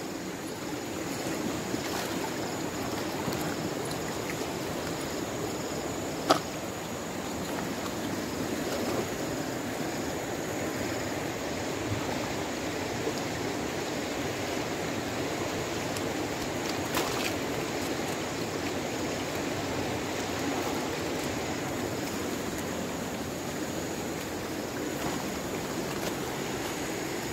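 Steady rush of flowing river water, with one sharp click about six seconds in.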